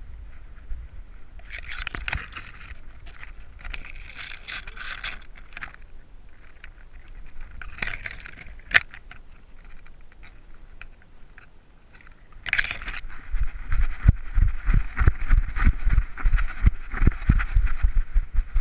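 Handling noise from a camera strapped to a dog moving through brush: jingling and rattling from the harness and mount, with vegetation scraping past, and one sharp click a little before halfway. From about two-thirds in, quick low thuds of the dog's running strides jolt the camera several times a second.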